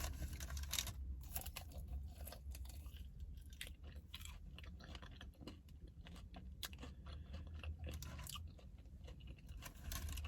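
Close-up chewing and biting into fried chicken wings, with irregular crisp crunches and wet mouth sounds, over a steady low hum.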